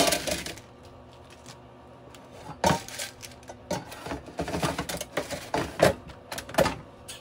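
Frozen vegan chicken pieces tipped from a plastic bag into a paper-lined air fryer basket with a short rustle and clatter. After a pause, a run of knocks and clunks as the plastic air fryer basket is handled and pushed shut, the loudest knocks a little after two seconds in and near the end.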